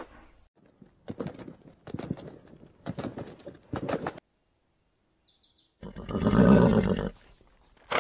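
Horse sounds: groups of hoof thuds and clicks, then a high whinny falling in pitch, and a loud rushing burst about six seconds in.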